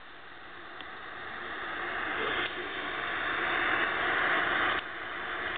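Radio static hiss from a Sansui FX-W51R walkman's built-in radio tuner: an even hiss that grows steadily louder, with sudden dips about two and a half seconds in and again near the end.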